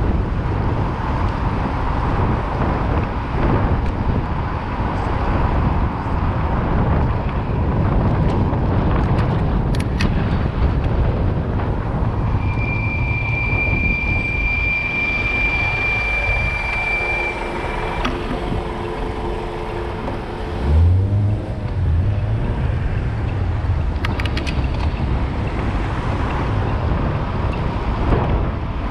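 Wind rushing over the microphone on a moving bicycle, with city street traffic underneath. A steady high-pitched squeal runs for about five seconds midway. A short low rumble about two-thirds of the way through is the loudest moment.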